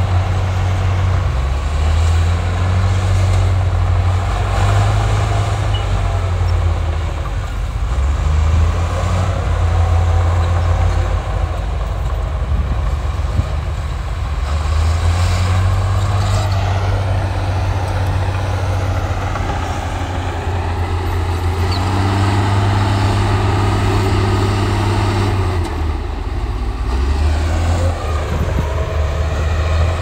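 Heavy diesel engines of earthmoving machines working, such as bulldozers pushing soil. They give a deep, continuous drone whose pitch and loudness shift up and down every few seconds as the load and throttle change.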